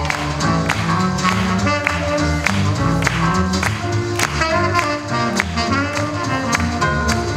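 Up-tempo swing jazz with brass and a steady rhythmic beat.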